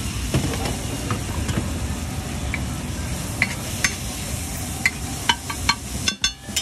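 Metal spatula scraping and tapping on a flat tawa griddle as chopped onion, tomato and coriander are stirred on it, over a steady sizzle. Sharp metallic clicks come in a quick string from about halfway through.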